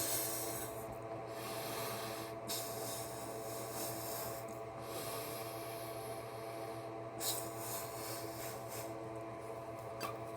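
Rubber rocket balloons being blown up by mouth and handled: several long rushes of breath with rubbing of the rubber, over a steady hum.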